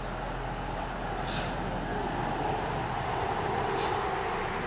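Narrow-gauge steam tank locomotive No. 762 running slowly, a steady rumble and hiss that grows a little louder as it comes nearer, with two short puffs of hiss.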